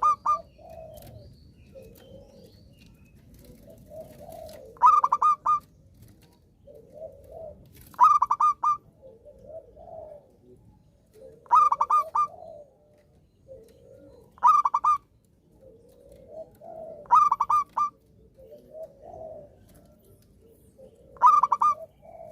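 Zebra dove (perkutut) singing its cooing song over and over, a loud short phrase of quick rolled notes about every three seconds, with softer, lower calls in between.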